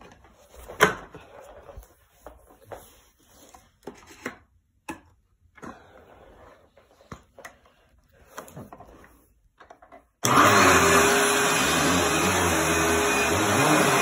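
Scattered handling clicks and knocks, then a Dirt Devil upright vacuum cleaner switches on abruptly about ten seconds in and runs steadily with a constant motor hum.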